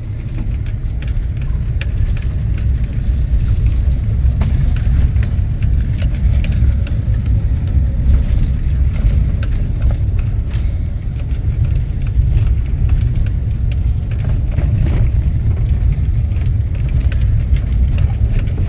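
Vehicle driving over a rough back road, heard from inside the cab: a steady low road and engine rumble with frequent small knocks and rattles from the bumpy surface.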